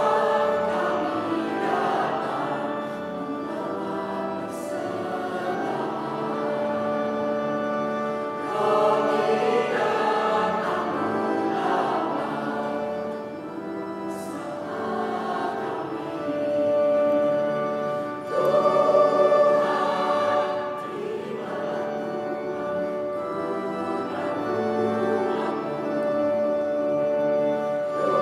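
Mixed church choir singing a hymn in two voice parts, with long held notes, swelling louder a little past the middle.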